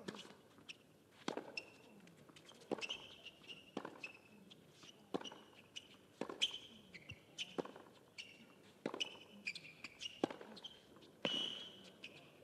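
A tennis rally on a hard court: a serve followed by about ten sharp racket strikes on the ball, roughly every second and a quarter, with short high squeaks between the shots.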